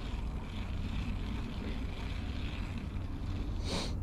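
Steady low rumble, with one short sharp swish near the end, consistent with a fishing rod being cast.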